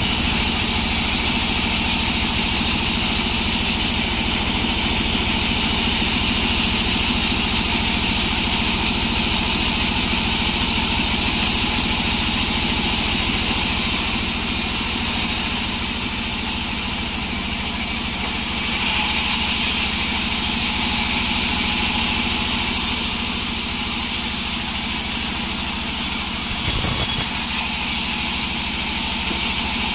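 A sawmill's engine running steadily, with a strong high hiss over its hum. There is a short knock about 27 seconds in.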